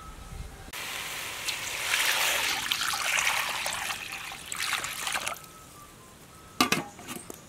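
Water poured steadily into a metal wok for about four and a half seconds, splashing onto the food in the pan, then stopping abruptly. A sharp metallic clank follows near the end.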